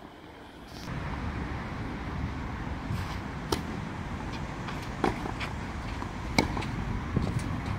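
Tennis rally on a clay court: sharp pops of the racket striking the ball and the ball bouncing, about seven of them at irregular intervals, over a steady low background rumble that sets in about a second in.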